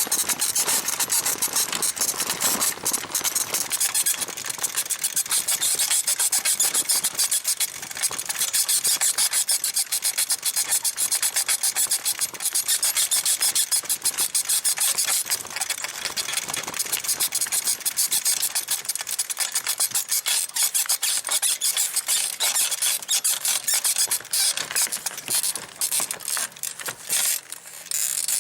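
Sprung 1970s bicycle saddle squeaking rapidly and rhythmically as it is bounced on, its springs flexing with each stroke.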